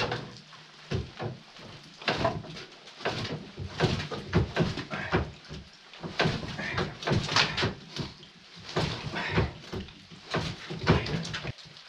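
Irregular knocks and clunks of split firewood shifting and the steel tailgate of a small utility trailer being lowered, about a dozen sharp knocks over the stretch.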